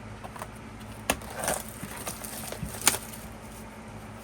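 Hands handling a small camera-shaped album box: scattered light taps and a brief scrape, with one sharp click about three seconds in.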